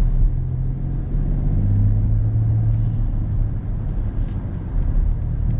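Inside the cabin of a BMW X5 xDrive30d on the move: the low drone of its 3.0-litre straight-six diesel under road and tyre noise.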